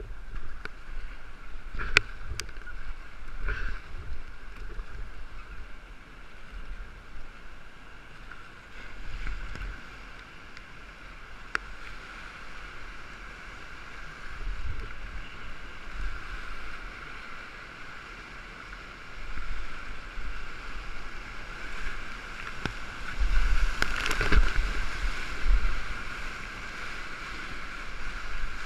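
Colorado River whitewater rushing and splashing around an inflatable kayak, heard from a camera on the boat, with low wind rumble on the microphone and a few sharp knocks. The water surges loudest near the end as the kayak runs into the big waves.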